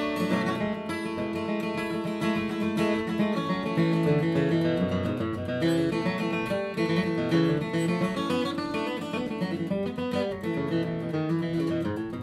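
Steel-string acoustic guitar, a Bourgeois vintage dreadnought, strummed and picked in a steady country-folk rhythm during an instrumental break in the song.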